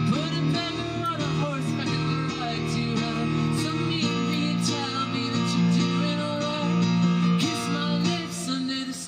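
Baby grand piano playing an instrumental passage of a pop song, sustained chords over a steady low bass line.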